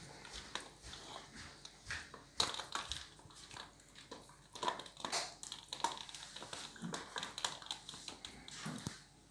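Boxer dog gnawing and tugging at a chew bone held in a person's hand: irregular crunching and clicking of teeth on the bone, with a few short snorts.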